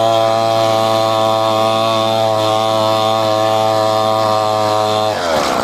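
Trailmaster 125 pit bike's 125cc four-stroke single running flat out at a steady high pitch during a top-speed run. Near the end the pitch briefly dips.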